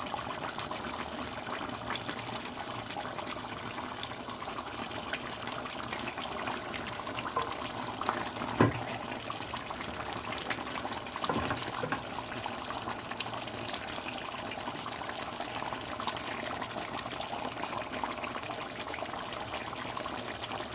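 Steady sound of water, running or bubbling, in a kitchen while biryani rice is being cooked. Two sharp knocks of a utensil come about eight and a half and eleven and a half seconds in, the first being the loudest sound.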